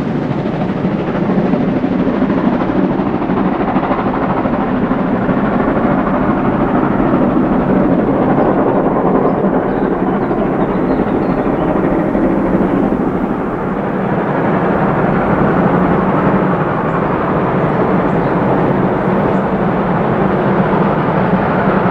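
Class 01 steam locomotive 01 2066 working hard up a steep grade, just out of sight, its exhaust merged into a steady, loud rumble with no clear beat.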